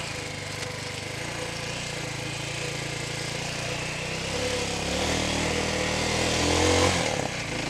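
Chinese TDR 300 dirt bike's engine under way on a muddy trail, running steadily at low revs. About halfway through it revs higher, rising in pitch and getting louder, then eases off briefly near the end.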